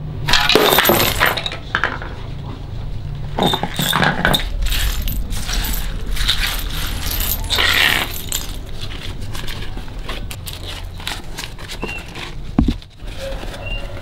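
Coins and terracotta shards of a broken clay piggy bank clattering and clinking on a concrete floor in several bursts, then lighter coin clicks as they are picked through. A single sharp knock comes near the end.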